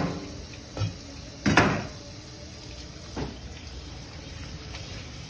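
A heavy kitchen knife chopping down through fish onto a plastic cutting board, a few knocks with the loudest about a second and a half in, then tap water running steadily over the cut fish pieces.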